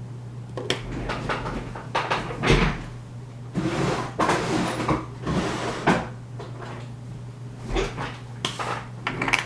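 Hand-working of a lock cylinder with small tools: scattered metal clicks, knocks and scrapes while prying at the stuck cap. A steady low hum runs underneath.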